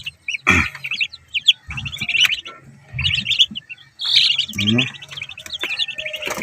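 A brood of newly hatched ducklings and chicks peeping continuously, many short, high, quick chirps overlapping one another.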